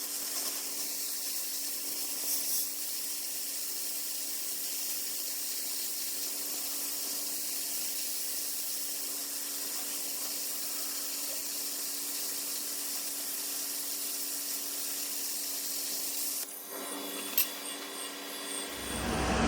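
Air plasma cutter arc hissing steadily while it cuts through a spacer ring on a slowly turning lathe, with a steady hum beneath it. The arc cuts off about three-quarters of the way through, followed by a single click.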